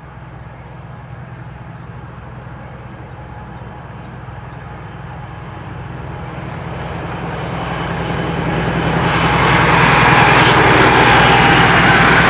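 DB class 218 diesel-hydraulic locomotive hauling a train of double-deck coaches, its diesel engine droning and growing steadily louder as it approaches, then holding loud from about ten seconds in as it passes.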